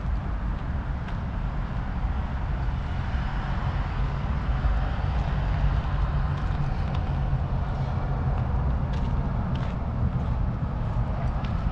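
Distant road traffic: a steady low rumble, with a few faint ticks near the end.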